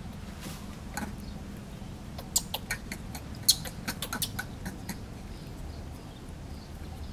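Infant macaque giving a quick run of short, high squeaks, starting about two seconds in and lasting a couple of seconds, over a steady low background rumble.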